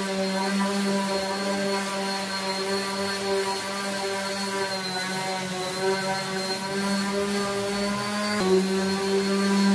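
Electric random orbital sander running steadily as it sands the willow face of a cricket bat, a constant motor whine with a slight shift in pitch near the end.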